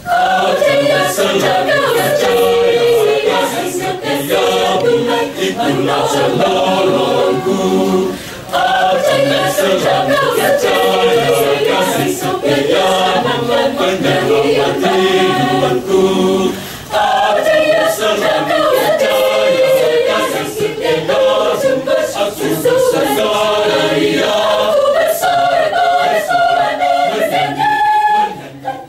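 Choir singing in several parts, the phrases breaking briefly about eight and sixteen seconds in.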